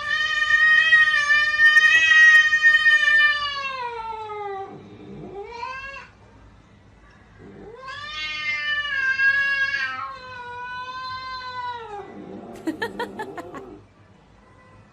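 A pet animal's long, drawn-out wailing calls: one long call that sags in pitch at its end, a short rising call, then another long wavering call. Some rapid, noisier sounds follow near the end.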